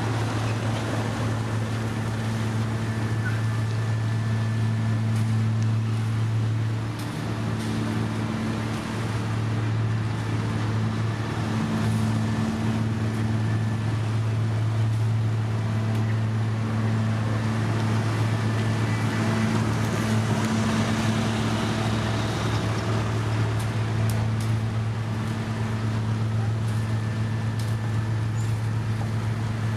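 Heavy road-paving machinery running steadily: a deep, unbroken engine hum with a strong low tone, dipping briefly about seven seconds in.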